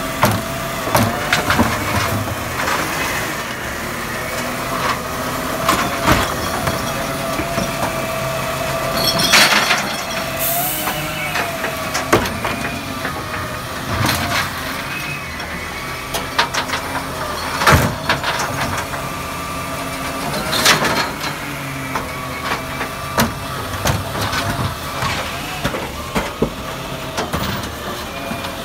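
Side-loading recycling truck at work: the diesel engine runs while the hydraulics whine as the automated arm grabs, lifts and tips wheelie bins. Several sharp bangs come as bins knock against the hopper and are set down, and there is a short hiss about ten seconds in.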